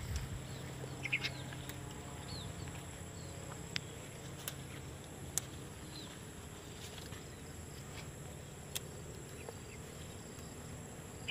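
Faint outdoor background of a steady high insect drone with a few short bird chirps. Several sharp little clicks come through as bird's eye chili pods are snapped off the bush by hand.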